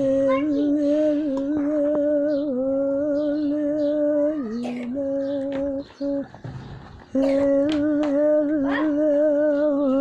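Background music: a long held note with a slight waver and its overtones, dipping about four and a half seconds in and breaking off briefly around six seconds in.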